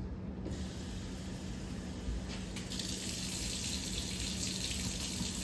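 Kitchen tap running into a sink, rinsing strained canned chickpeas. The flow starts about half a second in and grows stronger and brighter a couple of seconds later.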